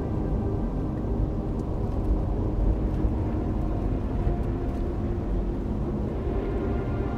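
A car driving along a highway, giving a steady low road and engine rumble. Soft music fades down early on and comes back near the end.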